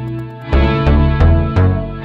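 Electronic instrumental music: deep bass notes pulse about three times a second under held tones, and the fast high ticking of the surrounding beat mostly drops out.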